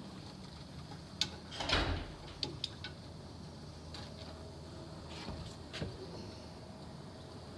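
Scattered light clicks and knocks from things being handled, with one brief louder scrape about two seconds in, over a steady low hum.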